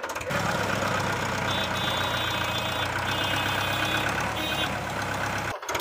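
Belarus tractor's diesel engine running steadily at a low, even speed. A thin high whistle comes and goes three times in the middle. The sound cuts off suddenly near the end.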